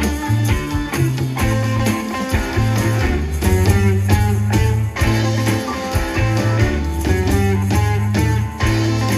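Live rock band playing Latin rock: electric guitar over bass, drums and keyboards, loud and steady throughout.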